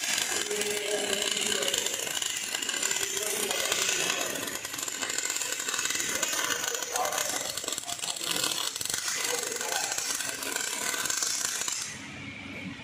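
MIG welding arc crackling steadily as a bead is laid on steel angle iron, then cutting off near the end when the torch is lifted.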